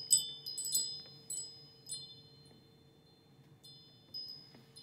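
Wind chime ringing: several high, overlapping tones struck irregularly, a cluster in the first two seconds and a few more near the end, each left to ring and fade.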